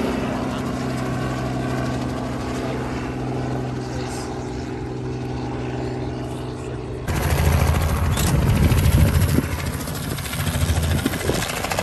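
Light helicopter flying overhead, a steady hum of rotor and engine that fades slightly as it moves away. About seven seconds in it switches suddenly to a louder, rougher low rumble.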